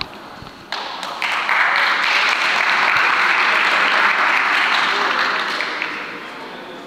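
Spectators applauding, the clapping starting about a second in, swelling to a steady burst and fading away over the last couple of seconds.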